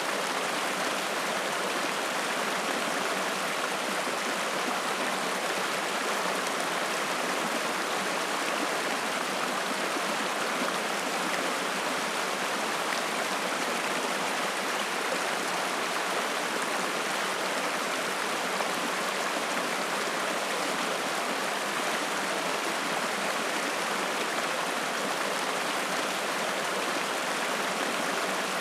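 Spring-fed mountain stream flowing, a steady, even rush of water.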